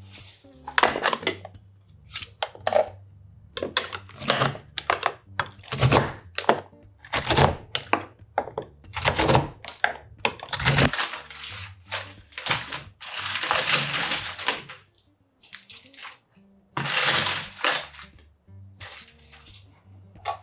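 Napa cabbage kimchi being cut up in a plastic tub with a handheld chopping blade: a string of sharp cuts and knocks against the plastic, with a couple of longer scraping passes.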